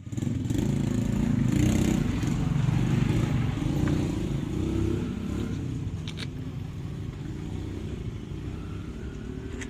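A motor vehicle engine running, louder over the first five seconds and then easing off.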